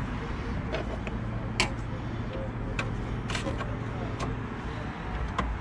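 Plastic headlight housing clicking and knocking as it is worked by hand into its mounting on a pickup's front end: about seven sharp clicks, the loudest about a second and a half in. A steady low rumble runs underneath.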